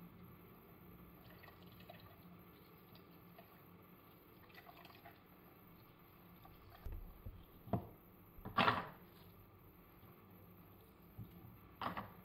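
Faint kitchen sounds of orange juice dripping and trickling into a plastic measuring jug. These are followed by a few short knocks and clatters of the jug and utensils on a wooden cutting board, the loudest a little past halfway.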